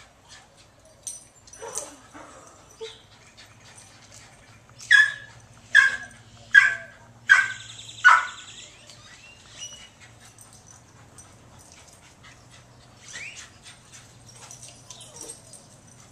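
Rat Terrier / Boston Terrier mix dog barking up a tree at a squirrel: five sharp barks in quick succession, a little under a second apart, about halfway through. Fainter whines come before and after the barks.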